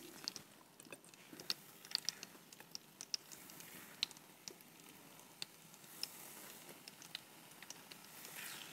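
Meatballs being set one by one into hot oil and garlic in an earthenware tajine: faint scattered ticks and light crackles of the oil, with a soft sizzle building near the end.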